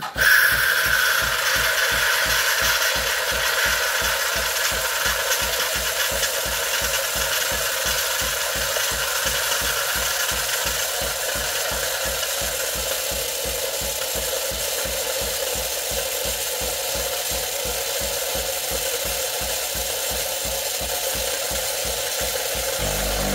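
Philips LatteGo 5400-series espresso machine frothing milk through its LatteGo carafe. The pump beats in a rapid, even pulse under a steady hiss of steam and air through the milk, starting abruptly; just before the end the pulsing gives way to a steady low hum.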